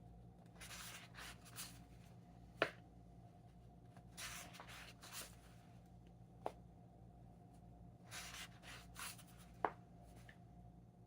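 Pages of a paperback book being turned by hand: three soft paper rustles, each with a sharp tap, over a faint steady hum.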